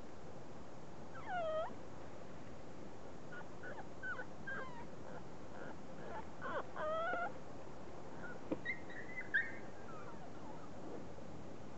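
Forty-day-old beagle puppies whimpering and yipping while they play-fight. Short, high cries come in several groups, some gliding down and back up, with a few small sharp clicks near the end.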